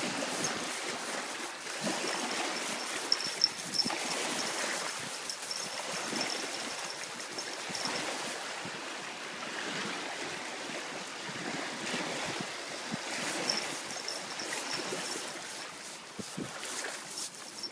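Jack Russell terrier digging and nosing in beach pebbles: stones crunching and clattering under its paws and snout, with a few sharper clicks about three to four seconds in.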